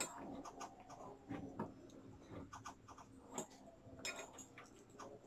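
Faint eating sounds of instant mi goreng noodles being tasted: scattered small clicks and mouth noises, with no steady rhythm.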